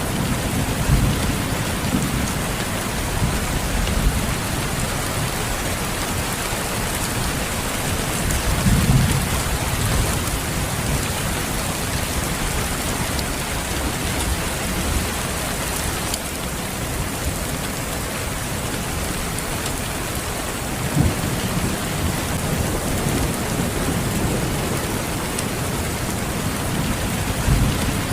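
Steady heavy rain, a dense even hiss, with low rolls of thunder rumbling up several times, most strongly about nine seconds in, about twenty-one seconds in and near the end.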